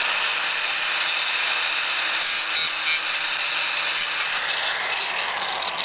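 Corded angle grinder with a sanding disc grinding rust off a steel dump-truck frame rail: a steady, high grinding hiss with a faint whine.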